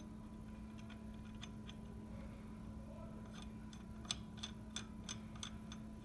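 Light metallic clicks from an Ampco IC Series centrifugal pump's impeller nut being turned by hand onto the shaft: about seven small ticks, roughly three a second, in the second half. A faint steady hum runs underneath.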